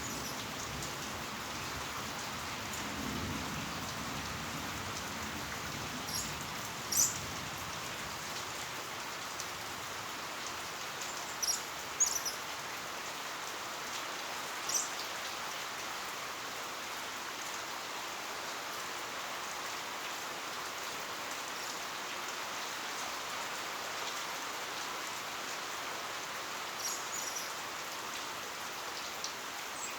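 Heavy rain falling steadily, with a handful of sharper, louder drop hits standing out now and then.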